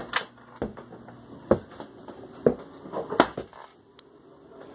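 Footsteps on wooden stairs: a run of sharp, irregular footfalls about a second apart, fading out near the end.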